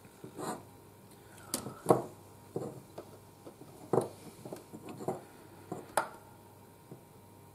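Small handling noises: a scattering of sharp taps and knocks as a figure bust is turned in the hands and a paintbrush and display base are handled, the sharpest about two, four and six seconds in, with a brief squeak just before the first of these.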